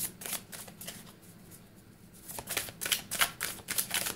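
Tarot cards being shuffled by hand: quick papery slaps and riffles, pausing for about a second in the middle before starting again.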